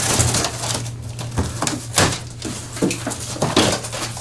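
Packing tape being peeled and torn off a cardboard box and the box flaps pulled open: a run of short ripping and scraping noises over a steady low hum.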